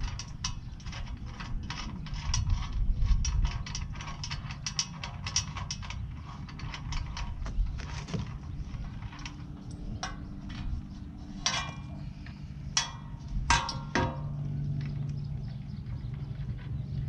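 Hand ratchet clicking in quick back-and-forth strokes for the first several seconds, then a few separate clicks and knocks, as the nuts holding the fog lights to the steel ram guard are worked loose.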